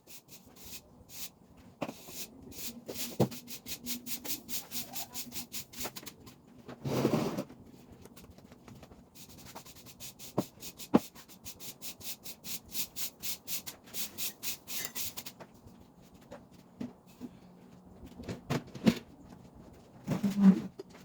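Quick rhythmic scrubbing strokes, about four or five a second, in two long runs, with a few knocks and thuds of things being handled between them.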